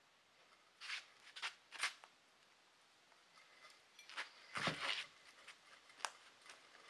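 Scattered scuffs and scrapes as a rusty GM 14-bolt rear axle is rolled and dragged across a concrete floor, mixed with shoe steps. The loudest is a longer scrape with a low rumble a little past the middle, and there is one sharp click about six seconds in.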